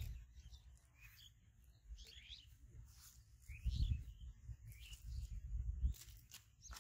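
Small birds chirping over and over in short, quick calls, with patches of low rumble around the middle and a few sharp clicks near the end.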